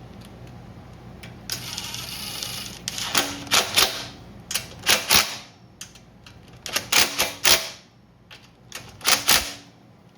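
Metal hand tools clicking and clacking in short clusters of two or three strikes, four groups in all, as the valve cover of a small generator engine is fastened back on. A short rushing noise comes a couple of seconds in, before the clicks begin.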